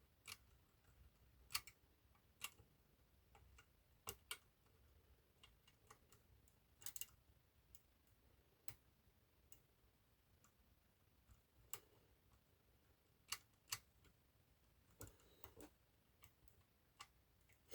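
Faint, irregular metallic clicks and ticks of a pick working the levers inside an eight-lever lever lock, single or paired clicks a second or so apart.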